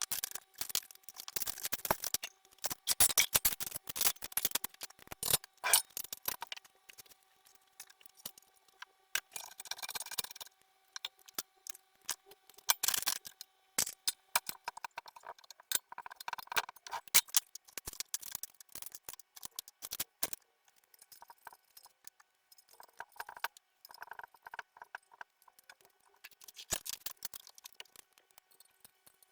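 Irregular light clicks and small knocks, in clusters with short gaps and no motor running, like small parts or tools being handled.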